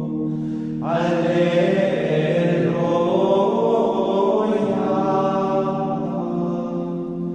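Sung plainchant with several voices. The voices swell in about a second in, over a steady held low note.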